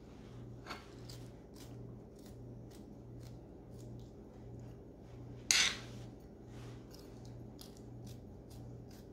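A kitchen knife cutting a green bell pepper into small pieces, held in the hand over a glass cutting board: a run of short cutting clicks, a few each second, with one louder clack about five and a half seconds in.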